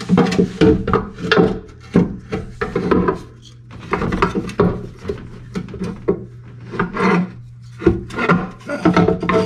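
Hand tools working at a car's oil pan bolts: a run of irregular rasping, scraping strokes and clanks.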